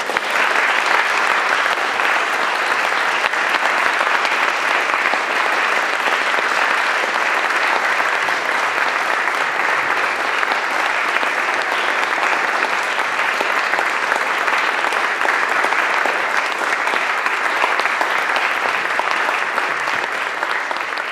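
Audience applauding, starting suddenly and holding at a steady, even level.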